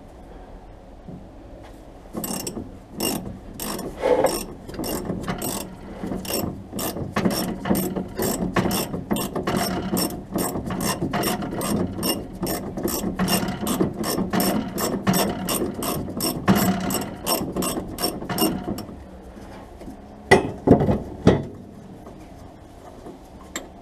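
Ratchet spanner clicking steadily, about three clicks a second, as a bolt on the rear axle is undone. The clicking stops and a few knocks follow near the end.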